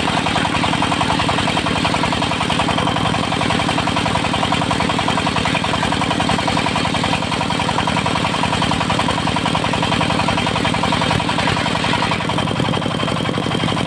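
Diesel engine of a mobile circular sawmill running steadily with a fast, even pulse. Near the end, a higher hiss above the engine eases off.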